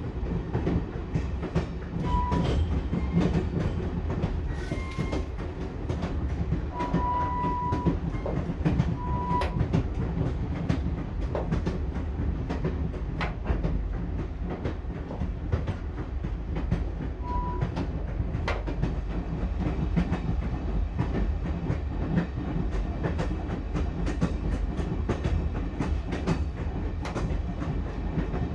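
Passenger train running, heard from inside the carriage: a steady low rumble with the clickety-clack of wheels over rail joints. A few short high tones sound at intervals, mostly in the first third.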